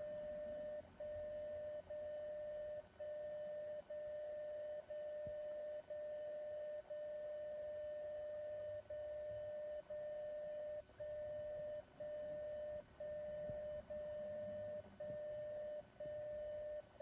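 DCF77 longwave time signal from the 77.5 kHz transmitter, picked up by the ferrite-rod receiver and heard as a steady beep-like tone. The tone dips briefly once a second: the carrier's amplitude drops that mark each second, with shorter and longer dips carrying the time-code bits.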